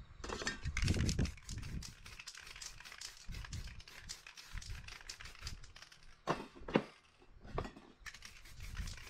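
Aerosol spray-paint can worked over a painted panel: a hiss of spraying with a busy run of small clicks and crinkles, then two sharp knocks about six and a half seconds in.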